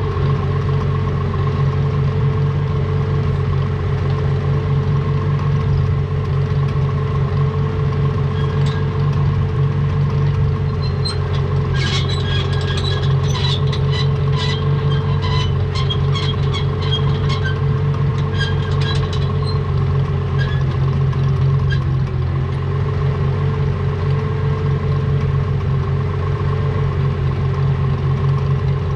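Farmall 706 tractor engine running at a steady speed, with light metallic clinking and rattling from about nine to twenty seconds in.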